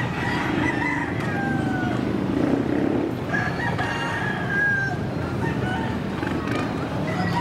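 A rooster crowing twice, over the steady low rumble of an Airbus A320-family airliner rolling out on the runway after landing.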